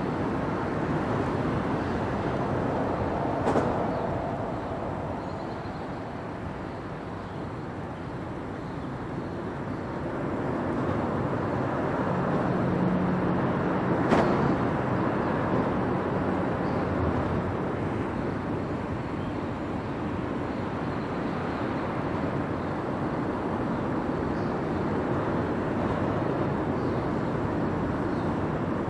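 Steady rumble of a steam-turbine Great Lakes bulk freighter moving slowly past, with two sharp knocks, one about three and a half seconds in and one about fourteen seconds in.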